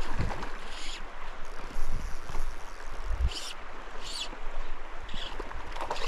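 Shallow mountain creek running over gravel, with wind buffeting the microphone and a few brief sharp hissing noises.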